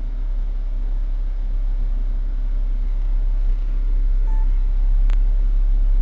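Steady low rumble of a vehicle, with a short beep about four seconds in and a sharp click about five seconds in.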